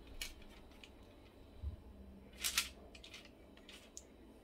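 Quiet kitchen handling sounds: a few soft rustles and light ticks as hands press seed-coated bread dough and handle a metal ring cutter, with the clearest short scratchy rustle about two and a half seconds in.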